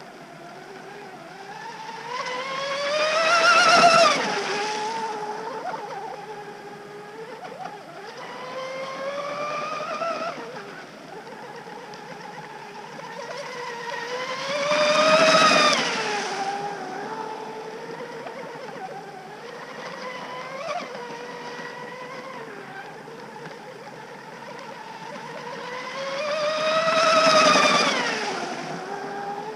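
WLtoys WL913 RC hydroplane with a 2968 3400kv brushless motor on 4S, whining at speed as it laps the water. It swells loud three times, about twelve seconds apart, as it passes close; each time the pitch climbs, then drops as it goes by, with quieter sweeps between.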